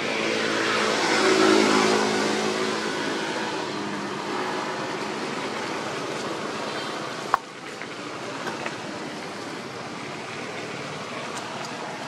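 A motorbike engine passing by, growing to its loudest about a second and a half in and then fading, over a steady outdoor background. A single sharp click comes about seven seconds in.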